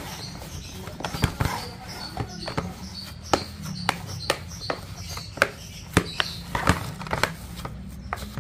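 Fishing bait dough being stirred and kneaded by hand in a container: irregular sharp taps and knocks, about one or two a second, over a steady low hum.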